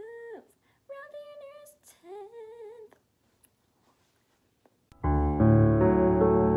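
A girl humming three short wordless phrases with gliding pitch, then a brief silence, then loud piano music cuts in about five seconds in.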